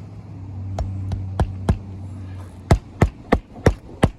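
Hammer driving roofing nails into an asphalt shingle: a few lighter taps, then a run of hard blows about three a second in the second half. A low steady hum sits under the first half.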